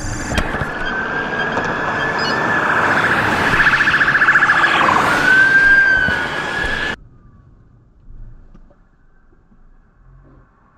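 Police car siren wailing close by, switching to a fast pulsing warble in the middle, over a rush of traffic noise. It cuts off abruptly about seven seconds in, leaving only faint low road noise.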